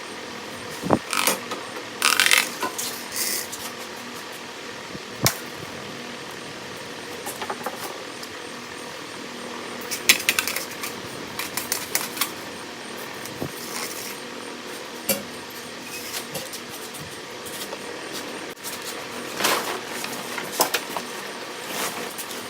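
A coil of resistance wire salvaged from a clothes-dryer element being handled and pulled apart to even out the spacing of its loops, the springy wire clinking and rattling in scattered bursts. Under it a fan runs steadily.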